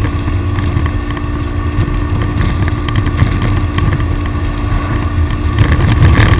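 Road vehicle under way, with engine drone and heavy wind rumble on the microphone. A steady engine note drops out about five and a half seconds in, as the overall noise grows louder.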